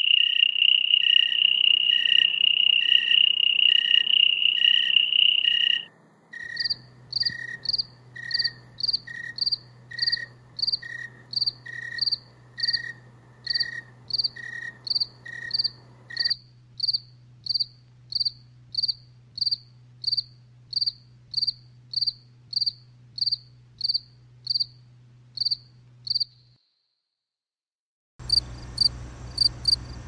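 Crickets chirping. A continuous high trill runs for about six seconds over a slower, lower chirping, then gives way to clear high chirps at a little under two a second. The chirping drops out briefly near the end and resumes over a low steady hum.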